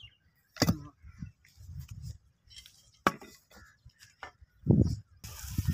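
A hand digging tool striking and loosening dry, sandy soil in a pit: a few sharp strikes spaced a second or more apart, with low scraping of earth in between and a heavier thud near the end.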